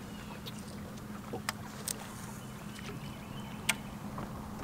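Bass boat sitting on the water with a steady low hum and a few sharp ticks and clicks, the loudest about three and a half seconds in.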